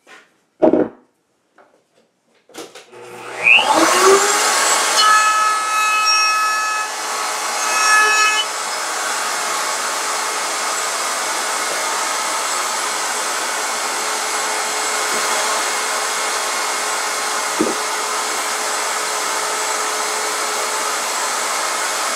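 A sharp knock, then a router in a router table spins up with a rising whine about three seconds in and runs steadily. It cuts along a frame piece to widen the panel groove, loudest during the first few seconds of the cut.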